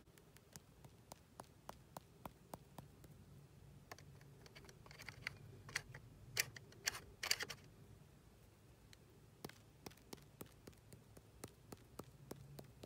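Faint quick clicks and taps, about three or four a second, with a louder cluster of clicks and rustling in the middle.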